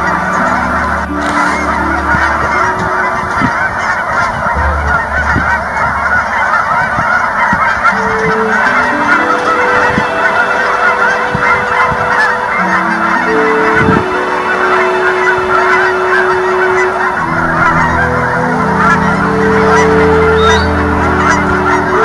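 A large flock of Canada geese honking, a dense, unbroken chorus of many overlapping calls. Underneath run long, steady low notes that shift pitch every second or two.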